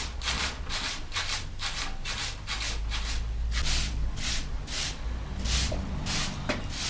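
A bristle broom sweeping a hard floor in brisk, scratchy strokes, about two to three a second, over a low rumble.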